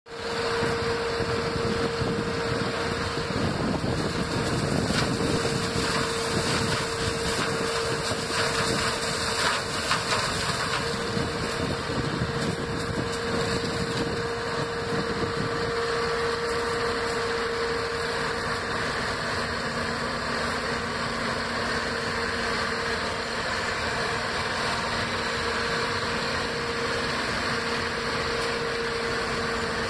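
Massey Ferguson 205 sugarcane harvester running as it cuts standing cane: a steady engine-and-machinery drone with a constant whine over it. A lower hum joins partway through.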